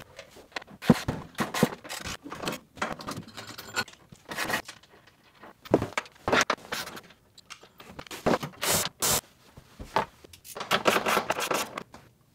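Irregular scraping, rubbing and clinking of hands and tools working loose the floor bolt under a van's sink cabinet, in short bursts with pauses between.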